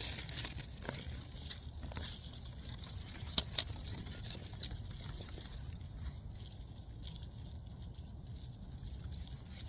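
Hands digging and rummaging through loose potting soil in a fabric grow bag while pulling out turmeric rhizomes: soil rustling and crumbling, with scattered small clicks, over a steady low background rumble.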